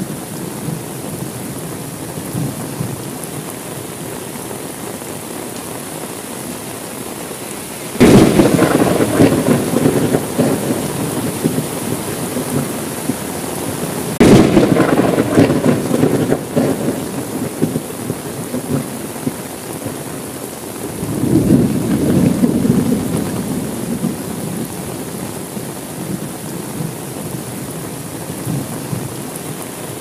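Steady rain with thunder. A sudden loud thunderclap comes about eight seconds in and rolls away over a couple of seconds, a second clap follows about six seconds later, and a lower rumble swells and fades about two-thirds of the way through.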